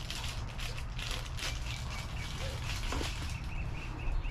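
A bird chirping in a quick run of short, even calls, starting about three seconds in. Under it are a few scattered clicks and a low steady rumble.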